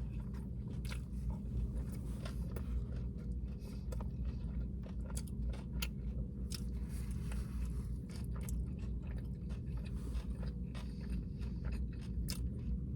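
A person chewing and biting into a taco close to the microphone: irregular wet mouth clicks and crunches over a low steady hum.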